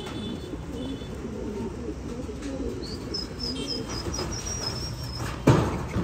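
Domestic pigeons cooing, a low wavering call throughout. A quick run of high chirps comes from about three seconds in, and a sharp thump sounds near the end.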